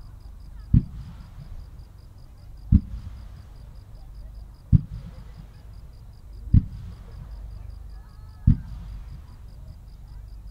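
A sequence of fireworks fired from the ground, going off as five deep booms about two seconds apart, each throwing a fan of stars.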